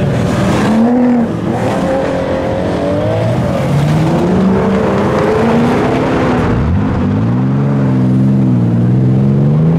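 Performance car engines revving hard as the cars accelerate away one after another, the engine notes rising and falling. About two-thirds of the way in, one deep engine note climbs sharply and is held at high revs, wavering.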